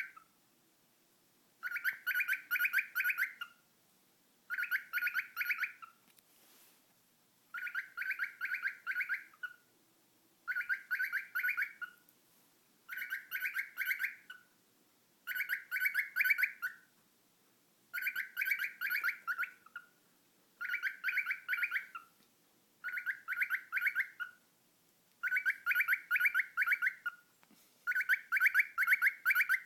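Cockatiel calling in short bouts of rapid, repeated chirps. The bouts come about every two and a half seconds, with short pauses between them.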